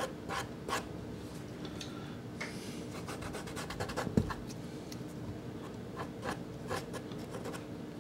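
A soft pastel stick scraping across pastel card in short strokes, with one longer rasping stroke between two and three seconds in. A sharper knock comes just after four seconds.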